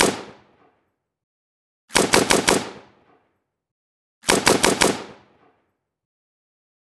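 AK-47 assault rifle firing on full auto in short bursts of about five rounds. A burst is ending as the sound begins, then two more follow about two seconds apart, each dying away quickly into silence.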